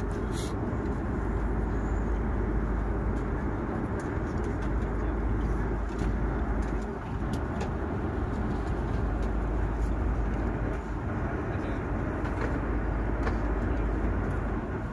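Steady cabin noise of an airliner in flight, the even drone of engines and airflow, with a few faint clicks.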